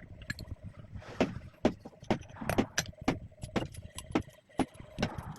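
Metal parts of a screw-cap capping head clinking and knocking as it is taken apart by hand: a string of irregular sharp clicks, about two or three a second.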